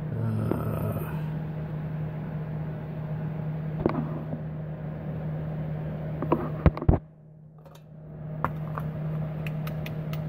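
A steady low hum, with a few sharp clicks and knocks about four seconds in and again around six and a half to seven seconds. Just after seven seconds the background hiss drops away for about a second while the hum carries on.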